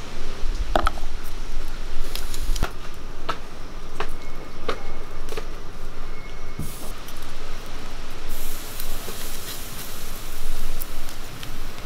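Knife blade clicking and scraping against garlic cloves as they are peeled and trimmed by hand, a sharp tick every second or so at irregular intervals, over a steady hiss of outdoor background noise.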